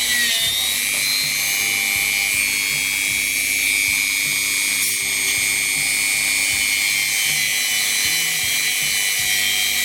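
Dremel rotary tool running steadily at about half speed, with a high whine, as it is worked back and forth over a steel cuckoo clock lift wire to clean off rust and dirt.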